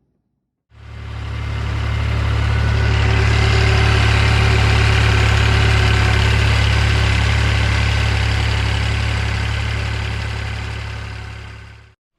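An engine idling steadily, with a strong low hum. It fades in about a second in and fades out near the end.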